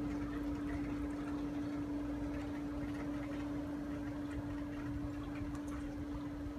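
Water trickling in an in-ground swimming pool over a steady hum.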